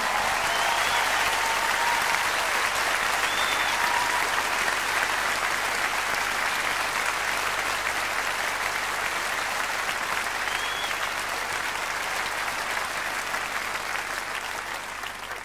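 Large concert audience applauding steadily after the music ends, with a few whistles at intervals. The applause slowly thins toward the end.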